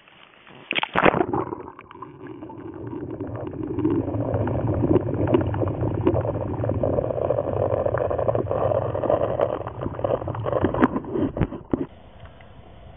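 Lake water splashing over a camera microphone as it is dipped into the water about a second in, then a muffled underwater rushing and gurgling with scattered clicks while it is held submerged. The sound cuts off sharply near the end as the microphone comes back out.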